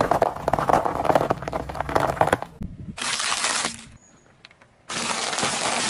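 A car tyre rolling onto and crushing a pile of sugar cubes: dense crunching and crackling for about two and a half seconds. Then come two short bursts of even hiss with a quiet gap between them.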